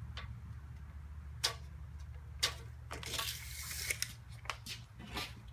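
Scattered clicks and taps from a steel tape measure and pencil on lumber as boards are measured and marked, with a rasping sweep about three seconds in as the tape blade slides back. A low steady hum runs underneath.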